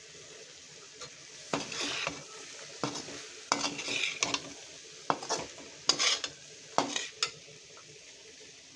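Slotted metal spatula stirring and scraping soaked chana dal with onion and tomato around a metal kadhai, six or seven strokes in the middle, over a faint steady sizzle from the pan.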